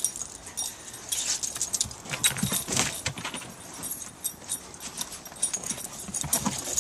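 Irregular crunching footsteps and scuffling in snow, a quick uneven run of short crunches.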